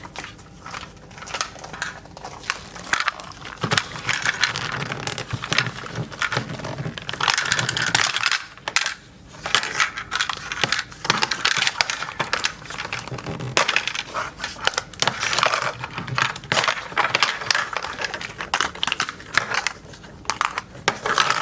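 Plastic toy packaging being handled and unwrapped: crinkling plastic wrap and dense clicks and clinks of hard plastic, with a short lull about eight seconds in.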